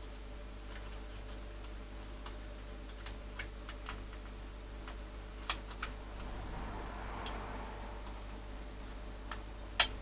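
Scattered small clicks and taps of a Sinclair QL's flat plastic keyboard-membrane ribbon being worked by hand into its edge connector, with a sharper click near the end. A steady low hum runs underneath.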